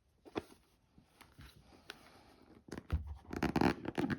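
Cardboard deck box being handled and opened: scattered light clicks and scrapes, then a louder bout of rustling and knocks near the end.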